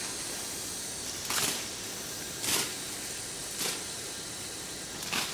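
Rustling of vegetation: four short swishes about a second apart over a steady hiss.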